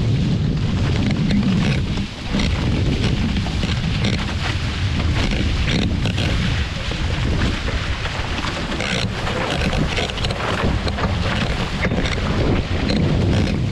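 Steady wind buffeting the microphone over rushing water, as when out on the water in a sailing boat, with a brief drop in level about two seconds in.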